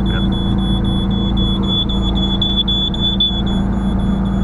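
A newly wired RV LP gas detector sounding its alarm: a loud, high-pitched electronic beep held steadily over a steady low hum. The installer takes it for the detector's power-up self-diagnostic.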